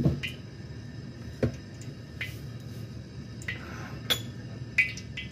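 A handful of sharp clinks and knocks of dishes and bowls being handled beside a wok of heating oil, over a steady low hum.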